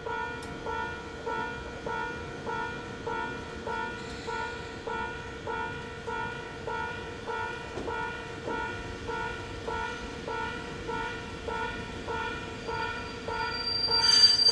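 Japanese railway level-crossing warning bell ringing steadily, about one and a half strokes a second, while an Ohmi Railway 820 series electric train approaches. Near the end the arriving train grows louder with a loud high-pitched squeal.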